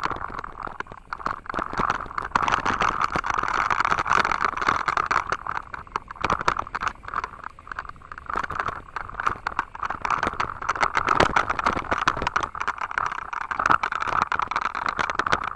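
Mountain bike rolling over a rough gravel and dirt path: a continuous, irregular clatter of the bike rattling and the tyres crunching over loose stones, over a steady rushing noise.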